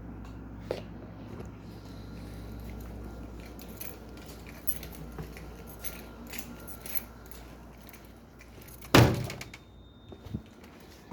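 Scattered small clicks and rustles of handling, then about nine seconds in a single sharp bang from a bundle of snap-pop noisemakers taped together, dying away within half a second.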